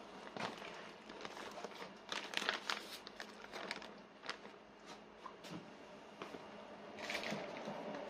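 Clear plastic bags crinkling and rustling as they are handled and shifted in a water bath, in irregular bursts, busiest a couple of seconds in and again near the end.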